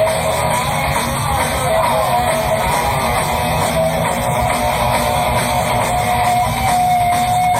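Live heavy rock band playing loud: an electric guitar holds and bends lead notes over the full band, with a long held note near the end.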